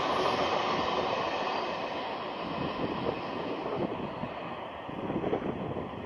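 Freight train of tank cars passing and receding: wheels clattering on the rails and a rumble that fades steadily as the last car moves away.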